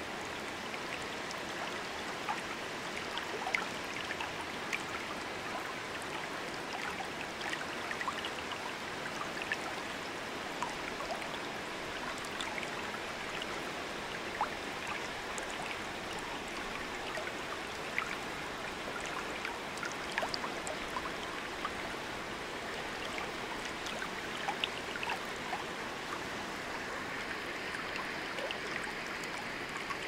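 Steady rush of water from the Tokaizu River at Narusawa Falls, with many small splashes ticking through it.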